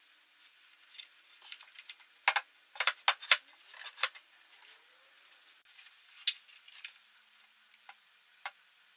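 Scattered sharp clicks and light knocks from a particleboard bookcase panel being lifted and handled, with a quick cluster of them about two to four seconds in and single knocks later.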